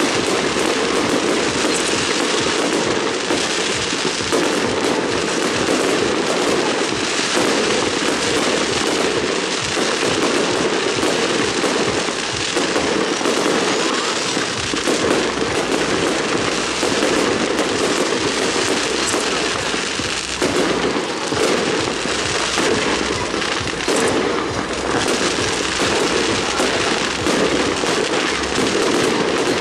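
Strings of firecrackers going off in a dense, unbroken crackle of rapid bangs.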